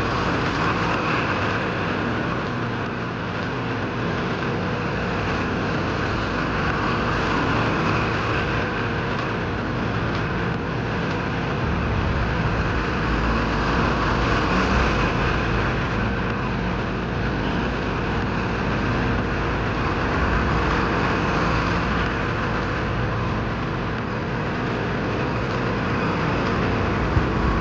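A 130 hp four-wheel-drive farm tractor's Dong Fang Hong engine running steadily as the tractor drives and manoeuvres.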